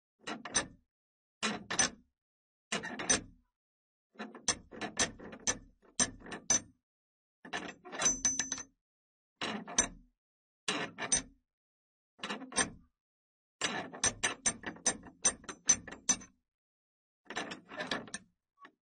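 Vintage iron door hardware, a metal door knocker and door handle with its latch on a wicket gate, worked in about a dozen short bursts of clanking clicks and knocks, with silence between them. A longer, busier run of clicks comes near the end.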